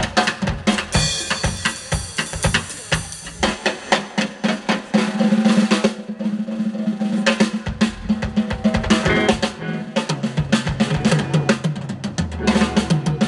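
Live drum kit played in a fast improvised passage, with dense snare and bass-drum hits and rolls. Held low bass notes sound under the drums from about halfway through.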